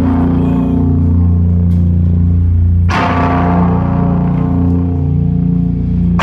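Metal band playing live: slow, sustained heavy guitar and bass chords ringing out, with a cymbal crash about three seconds in and another near the end.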